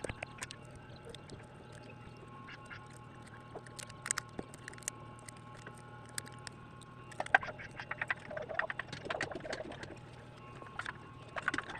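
Light clicks and taps of small repair tools and phone parts being handled, scattered at first and busier in the second half, over a steady electrical hum.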